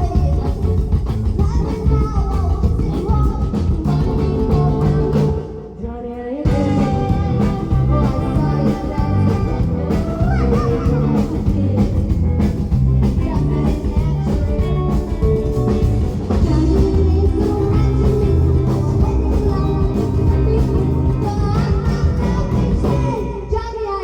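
Live rock and roll band playing, with a short stop about five seconds in before the full band comes back in.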